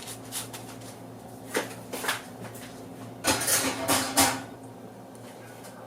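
Kitchen handling noises: a few light clicks and knocks of tableware being set down, then about a second of clattering a little past halfway, loudest at its end, over a steady low hum.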